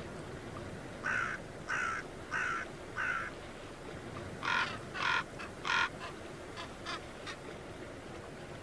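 Common raven calling: a run of four calls about half a second apart, then three louder ones, trailing off into a few short faint calls.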